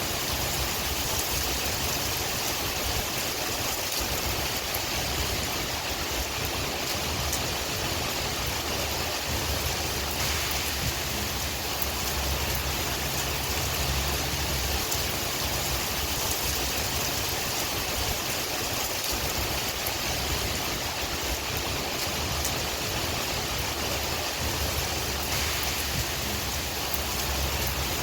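Steady rain with scattered drop ticks over a low, uneven wind rumble.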